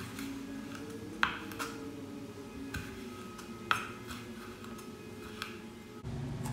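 Chef's knife dicing tomatoes on a wooden cutting board: a handful of sharp, irregular knocks of the blade against the board. The two loudest come about a second in and a couple of seconds later.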